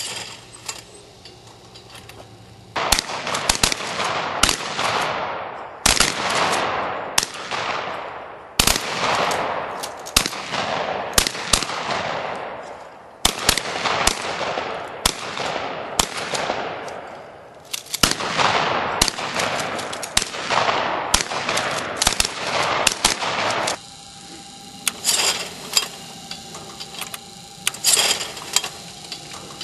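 A run of shotgun shots at flying clay targets, roughly one a second and sometimes in quick pairs, each crack trailing off in a long echo. About 24 seconds in the shooting stops, leaving lighter clicks from the Promatic Huntsman trap machine over a faint steady whine.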